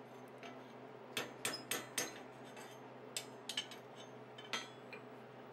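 Light forging-hammer blows on a steel bar bent into a loop over the horn of a small stake anvil, the bar's tip cooled in water. Sharp metallic clinks come in irregular groups: about four in quick succession, then three, then one more near the end.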